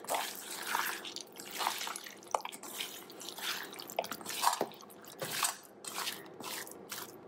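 A bare hand squeezing and rubbing raw chicken pieces in a steel bowl, working in a wet spice paste with coconut oil. It makes irregular wet squelching and squishing sounds.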